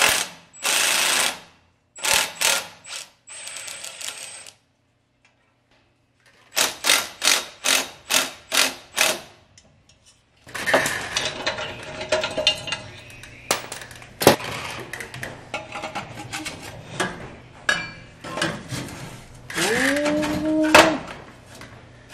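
Cordless electric ratchet whirring in short bursts on the exhaust flange bolts, then more short repeated bursts. After that comes steady metal clanking and rattling as the cut exhaust pipe and downstream catalytic converter are worked loose by hand, with a brief rising metal squeal near the end.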